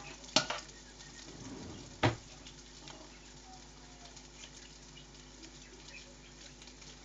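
Two sharp knocks about a second and a half apart, the second the loudest, followed by a faint steady hiss with scattered light ticks.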